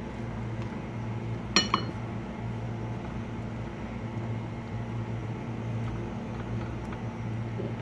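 One sharp metallic clink against a cooking pot about one and a half seconds in, with a brief ring, over a steady low hum, as raw chicken thighs are put by hand into a pot of boiling seasoned water.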